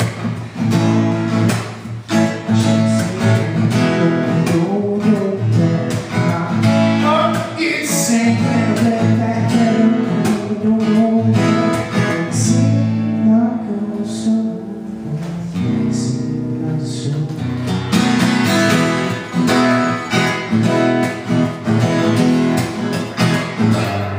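Taylor acoustic guitar strummed and picked in a live solo performance, with a man singing into the microphone over it.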